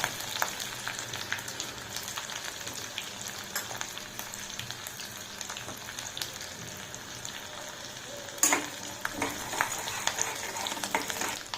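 Tempering for upma sizzling in hot oil and ghee: mustard seeds, cumin, curry leaves, green chillies and chana and urad dal frying with scattered small crackles while being stirred in the pan. A louder knock about eight and a half seconds in.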